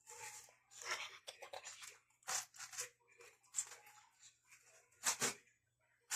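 Paper and tape crinkling and crunching as a homemade paper squishy is handled, in a series of irregular short crackles.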